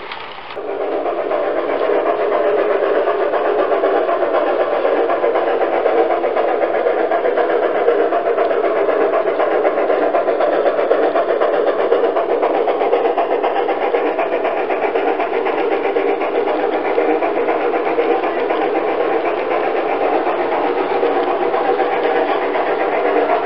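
G-scale model train running steadily on its track, a continuous rolling rumble of wheels and motor. It starts suddenly about half a second in.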